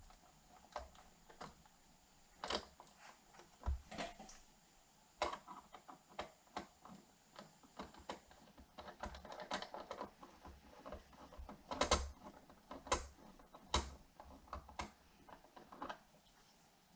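Irregular light clicks and taps of small screws, washers and hand tools being handled while a lock cylinder is screwed into a saddlebag, with a few louder knocks in the second half.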